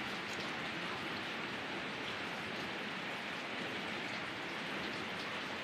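Steady even hiss like rain falling on a surface, with a few faint light ticks.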